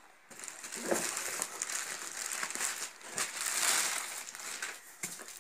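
Clear plastic packaging bag crinkling and rustling as it is handled, starting about a third of a second in, with a few sharp crackles.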